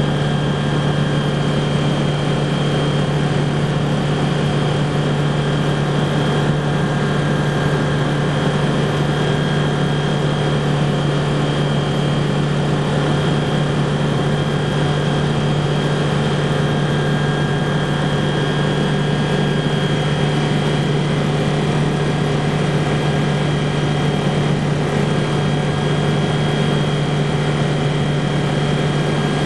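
Rotax 912 flat-four engine and propeller of a BushCaddy R-80 ultralight floatplane running steadily in level flight, heard inside the cockpit as an even hum at a constant pitch.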